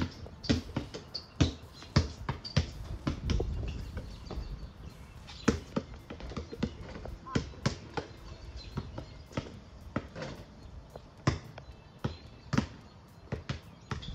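Basketballs bouncing on a concrete driveway as they are dribbled and shot: a long run of sharp bounces at uneven spacing, sometimes two or three close together.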